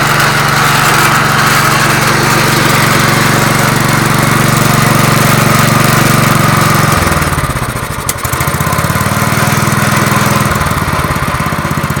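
8 hp Kohler Magnum single-cylinder engine on a Wheel Horse garden tractor running steadily just after a cold start. About seven seconds in its speed drops and then picks back up.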